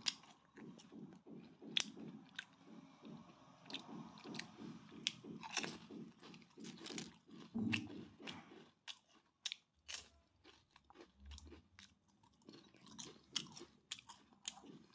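Potato chips being bitten and chewed: crisp, sharp crunches over a steady chewing rhythm of about three chews a second for the first half, then fewer, more scattered crunches.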